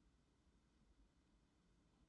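Near silence: a faint noise floor in the gap after a ringtone has faded out.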